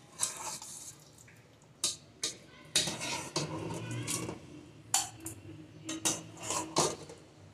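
Metal slotted spatula scraping and knocking against a nonstick cooking pot and a serving bowl as thick chicken curry is ladled out: a series of separate clinks and scrapes, about one every half second to a second.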